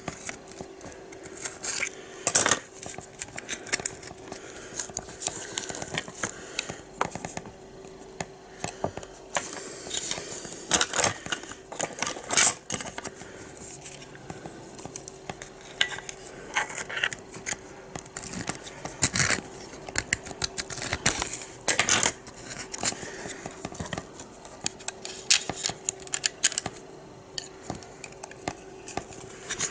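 Sharp metal tool being twisted and scraped in a hole in a hard plastic casing to widen it, a little at a time: irregular clicks, ticks and scrapes of metal on plastic, with a faint steady hum underneath.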